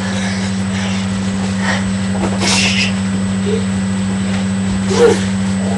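Steady low electrical hum picked up by a webcam's built-in microphone, with a brief hiss about two and a half seconds in and a couple of short, faint squeaky voice sounds toward the end.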